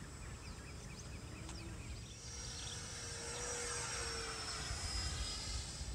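FMS Yak-130 RC jet's electric ducted fan whining as the model makes a pass, swelling from about two seconds in, loudest around four seconds, and sliding slightly down in pitch as it goes by. Birds chirp briefly in the first couple of seconds.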